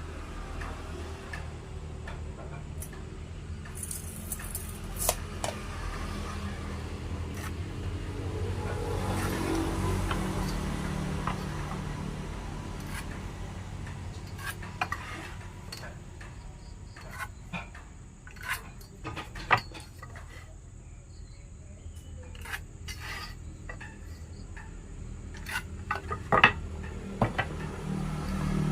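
Scattered clinks, taps and knocks of tools and wood pieces being handled at a woodworking bench, over a low steady hum.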